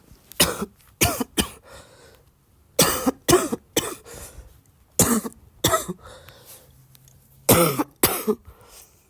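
A person coughing in short fits of two or three coughs each, about ten coughs in all, a cough that is turning wet.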